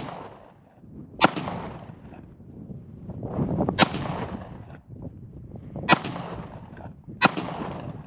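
Glock 43X 9mm pistol fired four times at an uneven pace, each shot trailing off in echo.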